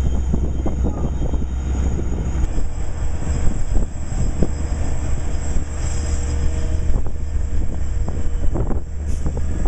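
LIRR DM30AC dual-mode locomotive running on diesel, its EMD 12-710 engine making a deep, steady drone, with irregular clicks and knocks from the train on the rails. A faint high whine above it steps up about two and a half seconds in and then slowly rises.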